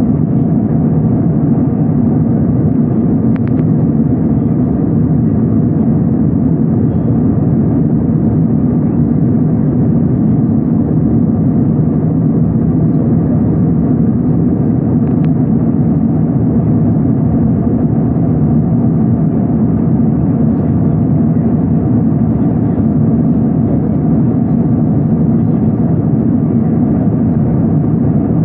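Steady cabin noise of a jet airliner in flight, the even rush of engines and airflow heard from inside the cabin.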